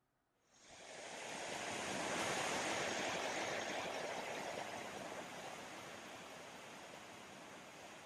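Rushing water of a waterfall fading in from silence, growing over the first couple of seconds and then easing to a steady rush.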